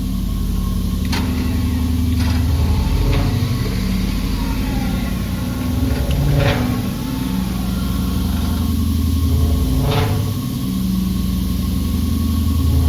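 An engine running steadily, its low note shifting every few seconds, with several sharp knocks scattered through it.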